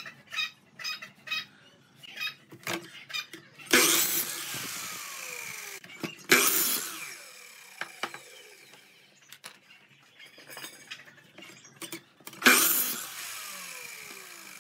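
Workshop tool noise: three loud bursts, each dying away over a couple of seconds with a falling whine, among lighter clicks and knocks of handling.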